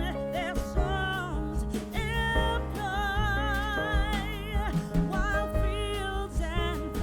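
Background music: a song with a singer holding long, wavering notes over steady instrumental backing.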